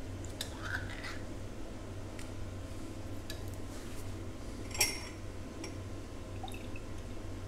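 A metal can and spoon handled against a glass jar: a few soft clicks and one sharper clink about five seconds in, over a steady low hum.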